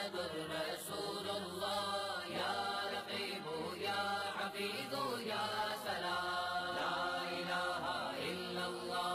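Background vocal music: voices chanting an Arabic devotional song (nasheed), a sustained, melodic chant.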